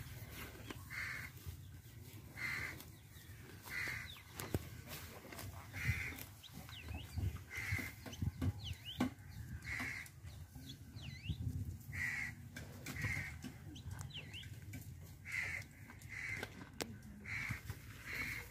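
Birds calling: short calls repeating about once a second or a little slower, with thin higher chirps between them, over a steady low rumble.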